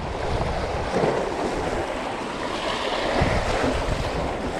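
Small waves washing and splashing against the rocks of a jetty, the wash swelling near the middle, with wind rumbling on the microphone.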